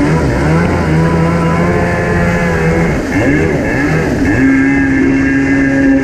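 1987 Kawasaki X2 jet ski's two-stroke engine running under way. The revs dip about three seconds in, then climb back and hold at a higher steady pitch.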